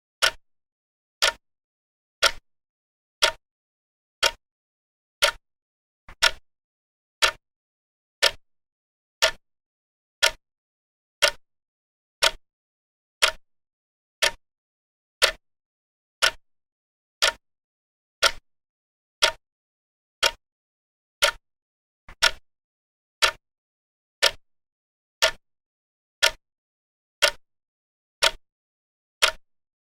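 Vintage clock ticking steadily, one sharp tick about every second.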